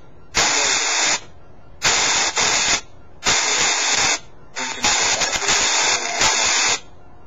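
SONO X10 Spirit Box Pro app on a smartphone sweeping through radio frequencies and playing hissing static in four choppy bursts. The first three bursts last about a second each and the last about two seconds, with quieter gaps between them.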